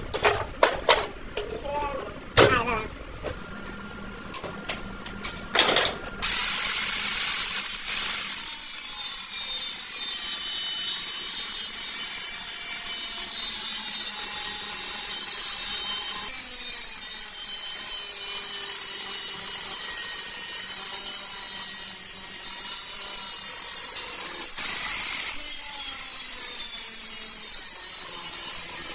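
A few sharp clicks and knocks, then from about six seconds in a power tool runs steadily with a high, hiss-like scraping noise that wavers slightly in pitch.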